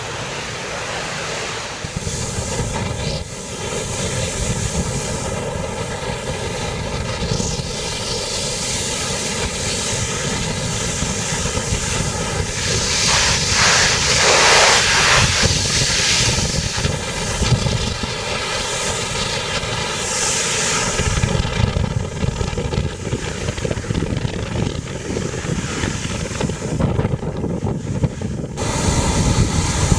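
Ferry at sea in strong wind: a steady engine drone with wind rushing over the microphone, and a louder rush for a few seconds about halfway through.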